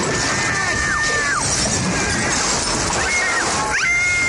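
Staged crash sound effect of a stand being smashed, with shattering and splintering. Several long, high-pitched screams ride over it, each held for about a second and then sliding down.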